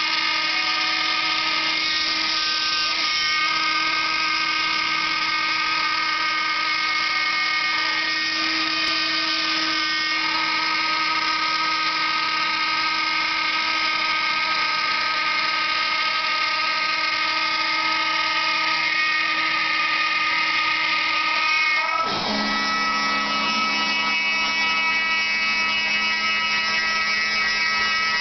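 CNC router's spindle motor whining steadily as its bit cuts out parts from a wooden sheet. About two-thirds of the way through the pitch dips suddenly and settles lower.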